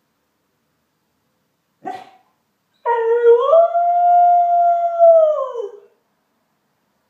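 A dog gives one short bark, then a single long howl that rises in pitch, holds steady for a couple of seconds and drops away at the end.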